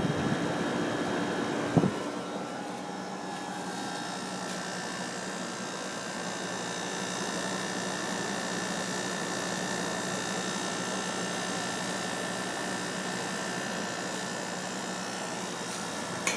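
Air conditioner running with a steady hum and a few steady whining tones. There is a short knock about two seconds in, after which the sound settles slightly quieter.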